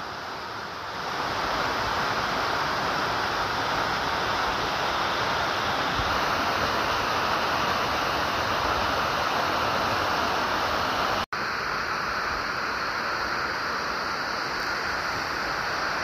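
Waterfall pouring down a rock face: a steady rush of falling water that grows louder about a second in and cuts out for an instant about eleven seconds in.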